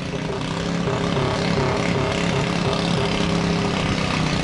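Modified lawn tractor's engine running at a tractor pull, getting louder about a second in and then holding a steady pitch.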